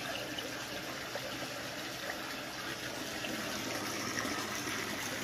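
Water running steadily through a homemade sluice box, rippling over expanded-metal riffles.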